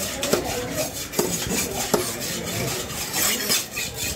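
A broad knife scraping the scales off a small fish on a wooden chopping block: rasping scrape strokes with a few sharp knocks of the blade against the wood.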